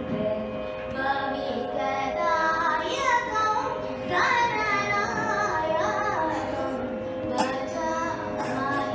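A young female voice singing Carnatic classical music solo, with gliding, ornamented held notes, over the steady drone of an electronic tanpura box.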